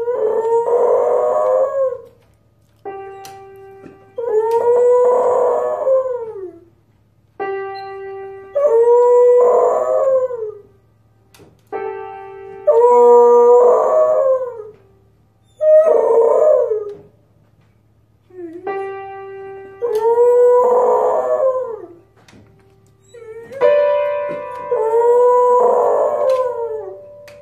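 A beagle pressing piano keys with its front paws and howling along: about seven times a plunked note or chord rings out and a long howl follows, wavering up and down in pitch.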